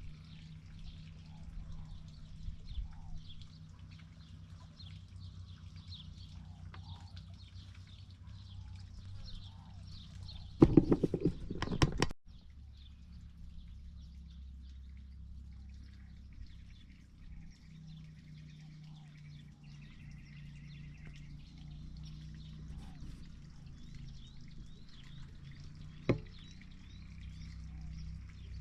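Outdoor ambience of many small birds chirping over a steady low hum, broken about ten seconds in by a loud rough burst lasting under two seconds, with a single sharp click near the end.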